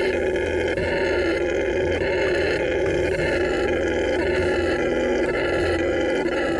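Red howler monkey howling: a loud, deep, unbroken roar held steady without a pause.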